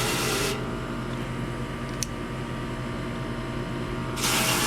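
Garden hose spraying water onto an air-conditioner condenser coil. The spray cuts off about half a second in and starts again near the end, leaving a steady machine hum in between.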